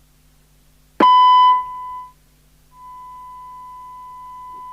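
Test tone from a Domico Convoy 1 CB radio's audio output. It comes in suddenly and very loud, with a harsh edge, about a second in, drops in level, cuts out briefly, then returns as a steady, quieter single tone. The tone is the receiver's squelch opening and closing on the test signal.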